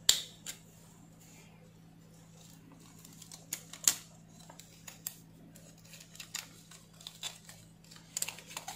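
Scattered sharp plastic clicks and light knocks as a hair trimmer's circuit board and battery pack are worked out of its plastic housing. The loudest click comes right at the start and another about four seconds in, with a quicker run of small clicks near the end, over a faint steady low hum.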